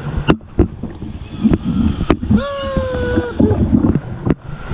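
Rafting on river water, with wind on the microphone: five sharp knocks, such as paddles striking the raft, and a single held shout in the middle.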